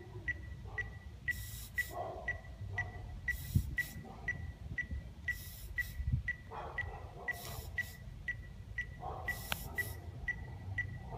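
A rhythmic electronic beat: a short high beep repeating evenly about three times a second, with a pair of hissing hits about every two seconds.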